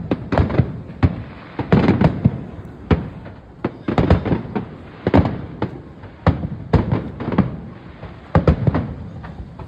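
Fireworks display: a continuous barrage of aerial shell bursts, sharp bangs coming several a second in irregular clusters.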